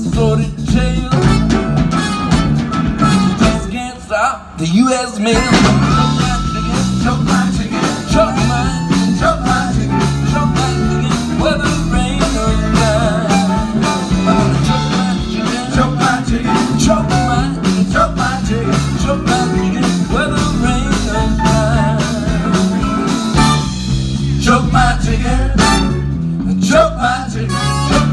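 A large live band with horns, acoustic guitar, cello and drums playing a bluesy up-tempo number, with a brief stop about four seconds in before the band comes back in.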